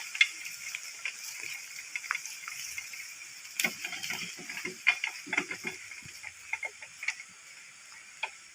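Irregular scrapes, clicks and knocks from a walk-behind rice-field tractor being dragged by hand down a steep dirt slope, its engine not running, with a louder cluster in the middle, over a steady high hiss.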